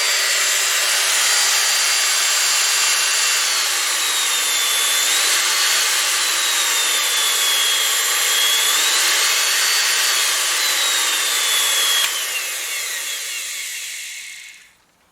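Electric motor of a Black & Decker 9411 band saw running on a test after its cut power cord was replaced, showing that it works, with a high whine whose pitch rises and falls several times as its speed changes. About twelve seconds in it is switched off and winds down, the whine sliding lower until it stops.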